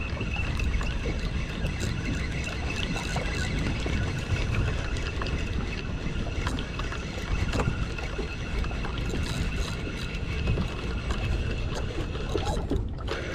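Motorboat engine running steadily under way, with water and wind noise and a steady high whine over it.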